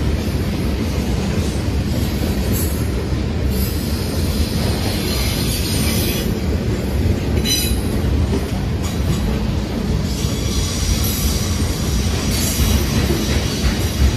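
Freight train of tank cars rolling past close by: a steady low rumble of steel wheels on rail, with high-pitched wheel squeal coming and going.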